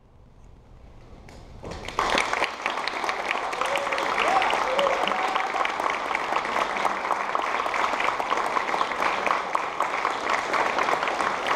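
Audience applauding. It starts faintly, breaks out in full about two seconds in, and keeps going steadily.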